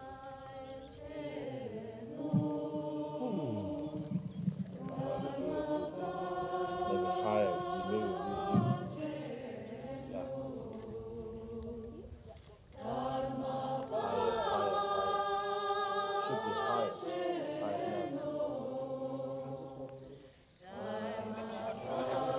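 Sung Buddhist chant: a group of voices holding long melodic phrases, with two short breaks, about halfway through and near the end.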